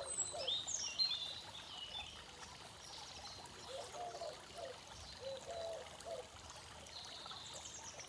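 Tiered garden fountain trickling steadily, with birds chirping now and then, most in the first second or so.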